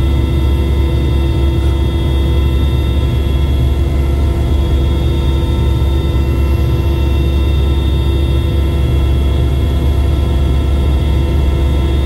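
Aircraft cabin noise in flight: a loud, steady engine drone with a deep low hum and several steady whining tones above it, unchanging throughout.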